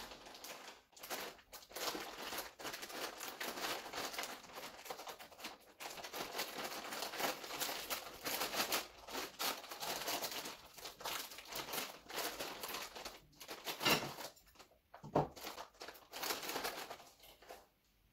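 Plastic instant-ramen packet being crinkled and torn open by hand, a dense crackling rustle that comes and goes. Two short louder sounds follow a few seconds before the end.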